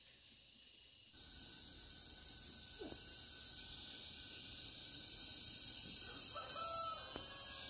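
Steady, high-pitched chorus of insects, starting abruptly about a second in, with a few faint calls near the end.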